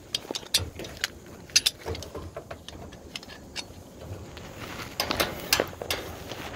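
Metal climbing hardware clinking and jangling: a run of sharp separate clicks, busier near the end.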